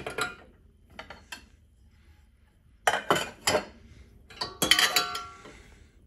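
Stainless steel pots clanking against the dishwasher's wire rack as they are lifted out and set back: several separate clanks, the loudest a little before five seconds in, with a brief metallic ring.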